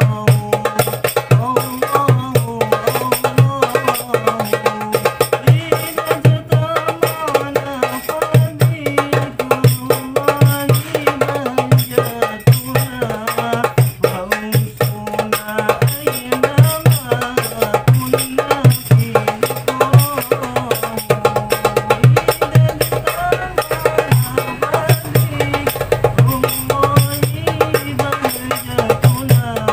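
Hadroh frame-drum ensemble playing a steady rhythm: a cast-aluminium darbuka and rebana frame drums under strong low bass-drum strokes, with a sholawat melody carried over the drumming.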